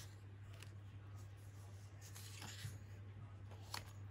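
Faint rustling of printed paper cards being handled and shuffled between the fingers, a few brief rustles with one slightly sharper near the end, over a steady low hum.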